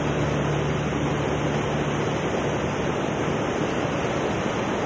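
Rushing river water running fast over rocks and rapids: a steady, even rush of whitewater.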